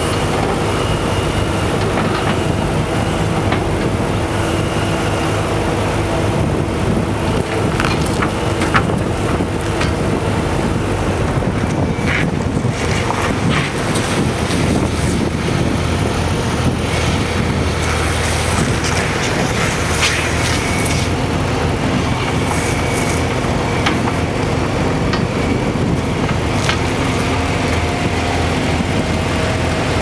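A New Holland LX865 skid steer's three-cylinder turbo diesel engine running steadily, with scattered short knocks and clanks.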